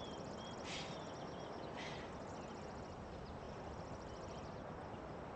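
Faint outdoor ambience: a steady low background hiss with a few brief bird chirps and two short soft rustles in the first two seconds.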